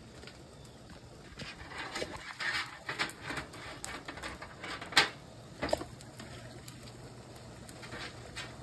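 Light kitchen handling sounds: scattered taps and clatter of hand and food on a metal baking sheet beside a stockpot, with one sharp click about five seconds in.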